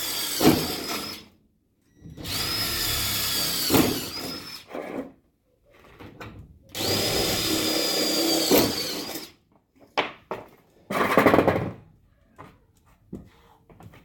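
Power drill running in three bursts of about two seconds each, its steady high whine dropping in pitch each time the trigger is released. A short, loud, noisy clatter follows about eleven seconds in.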